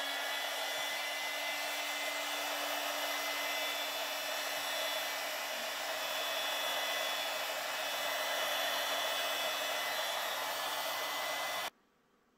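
Electric heat gun running steadily, blowing hot air onto a shotgun barrel to heat the metal before the first coat of Oxpho-Blue cold bluing: a steady rush of air with a faint steady hum, cutting off abruptly near the end.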